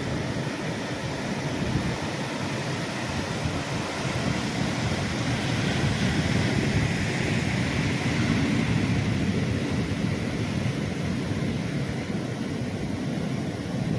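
Ocean surf breaking on a beach: a steady wash of waves that swells a little about halfway through.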